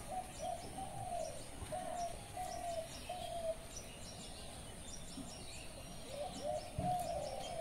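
A bird calling: a run of short, clear notes on much the same pitch in the first few seconds, a pause, then a longer phrase near the end.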